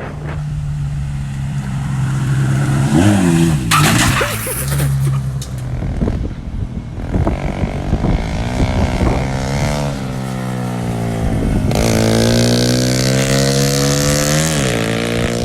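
Chevy Cavalier's engine running and being revved up and down several times, with bursts of rushing wind noise on the microphone.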